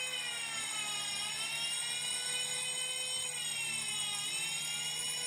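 Fire-alarm bell (경종) and electronic siren sounding together, set off by the opened sprinkler test valve. The siren's pitch slowly dips and rises about every three seconds over the steady ringing, with a low steady hum underneath.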